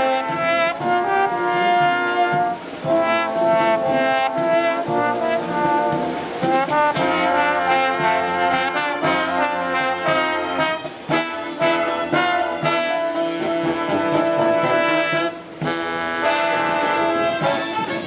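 Marching brass band playing live: trumpets, trombones, saxophones and sousaphone with snare drum and cymbals, held chords broken by short punched phrases, with a brief drop about fifteen seconds in.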